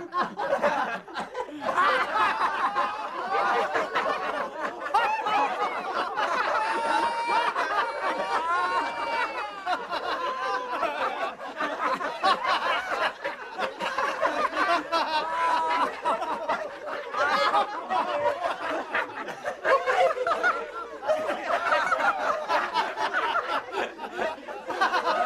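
A group of people laughing, chuckling and snickering continuously, several voices overlapping.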